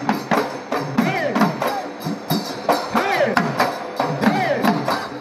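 Live Bihu folk music of dhol drums beaten in a quick, driving rhythm with sharp strikes. Over it a high melodic line rises and falls again and again.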